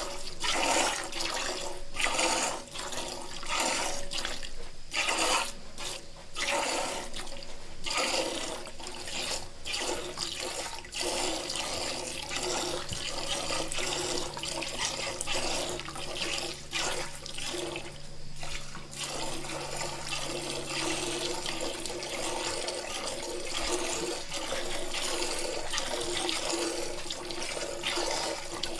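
Milk streaming and splashing into a container: an uneven run of spurts for the first several seconds, then a steadier rushing flow.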